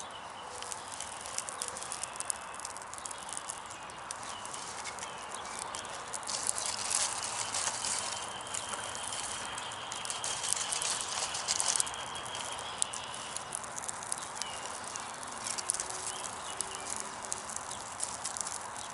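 Birch-bark tinder and dry twigs catching alight and crackling, with sharp snaps and ticks densest in the middle, over the rustle of bark and sticks being handled.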